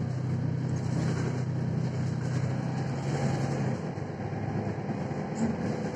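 Mercedes-Benz Citaro C1 Facelift city bus under way, heard from inside the passenger cabin: steady engine hum and road noise, with the engine's low hum dropping away a little under four seconds in.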